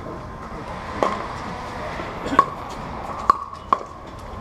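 Pickleball paddles hitting a plastic Dura 40 ball during a rally. There is a sharp pock about a second in, another a little over a second later, then two more close together near the end.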